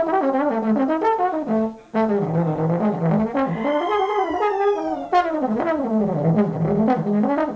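Live klezmer-punk band playing, with the horns (saxophone and trombone) leading fast melodic runs that fall in pitch, in three phrases with short breaks between them, over bass and drums.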